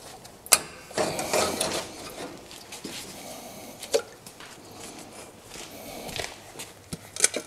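A tin can and locking pliers being handled on a camp stove's metal grate: a few scattered light metal clinks and knocks, with rustling between.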